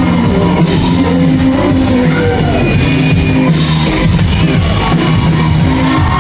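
Rock band playing live: electric guitar, drum kit and singing, loud and steady.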